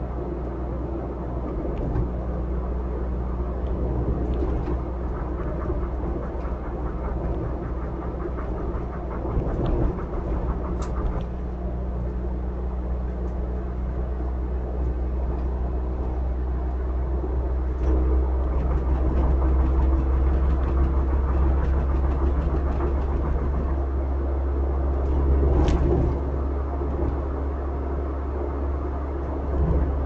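Engine and tyre noise of a moving car heard from inside the cabin: a steady low rumble with an even engine hum, growing louder a little past halfway and easing again near the end.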